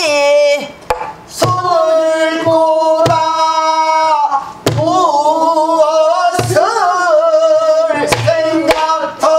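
A woman singing pansori in long, held, wavering notes, accompanying herself on a buk barrel drum whose stick and hand strokes land every second or two as low thumps and sharp cracks.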